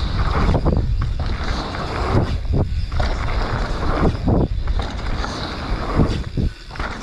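Wind rushing over an action camera's microphone while a mountain bike rides at speed down a dirt jump line, with tyre and trail noise underneath. The rush drops briefly every second or two.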